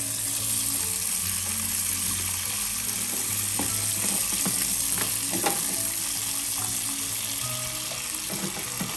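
Kitchen tap running steadily into the sink with an even hiss, and a few light clinks in the middle.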